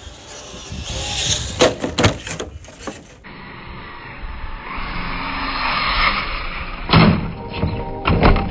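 Traxxas TRX-4 Sport RC rock crawler driving: its electric motor and gears whir steadily, with several knocks as it bumps over the obstacle course.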